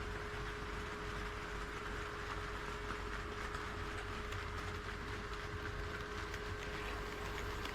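HO scale model train running along the track: a steady motor hum with the running noise of wheels on the rails.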